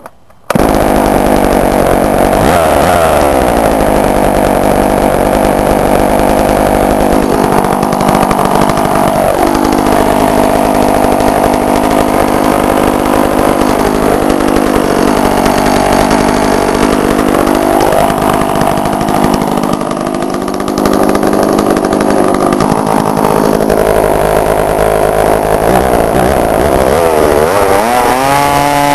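Sachs Dolmar 120 Super two-stroke chainsaw running, coming in suddenly about half a second in. Its engine speed rises and falls several times and revs up repeatedly near the end.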